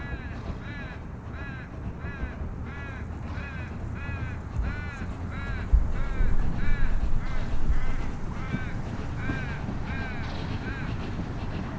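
Pichi Richi Railway's Coffee Pot steam railcar pulling away with a low exhaust rumble that grows louder from about the middle. Over it a high, arching squeal or call repeats evenly about twice a second.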